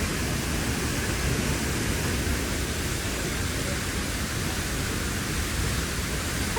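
Harvalem waterfall's water falling, a steady, unbroken rushing noise.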